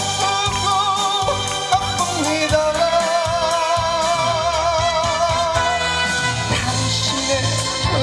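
A song performed over a backing track: a melody of long held notes with heavy vibrato over a steady bass and beat.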